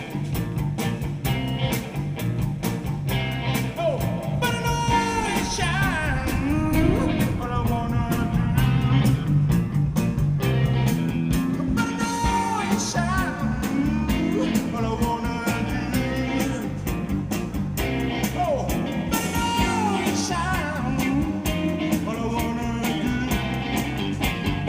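Live rock band playing: a singer over electric guitar and a steady drum beat.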